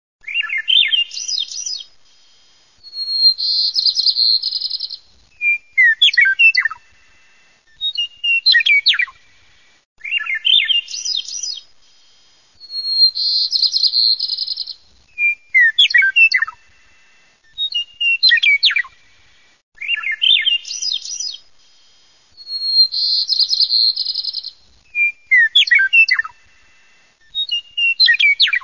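Bird song repeated as a loop about every five seconds. Each phrase is a rising note, then a steady high trill, then a run of quick falling chirps.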